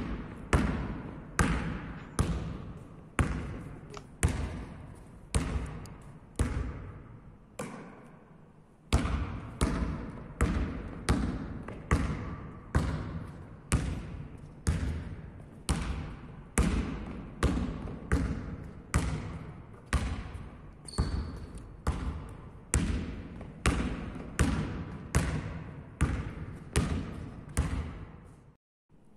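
Basketball dribbled on a sports hall floor, each bounce a sharp slap with a short echo. About one bounce a second at first, a brief lull around eight seconds in, then nearly two bounces a second, cutting off suddenly just before the end.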